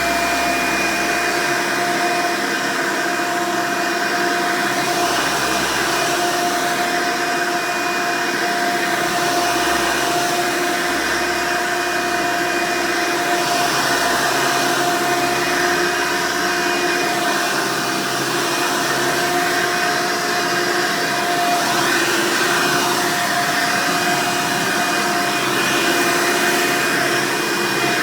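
Hoover Elite upright vacuum cleaner with a 7-amp motor running steadily just after being switched on: a loud motor whine with a high held tone over the rush of airflow.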